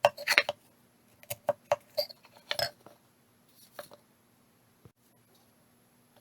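Hard wooden knocks and clicks from working pieces of a hand-cut box joint: a quick cluster of sharp taps in the first three seconds, two more about four seconds in, then only faint ticks.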